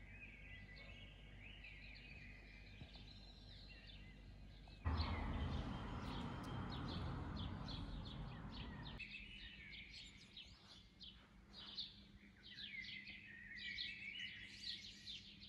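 Sparrows chirping in many quick, overlapping calls, thickest in the second half. About five seconds in, a rushing noise covers everything for about four seconds, then stops abruptly.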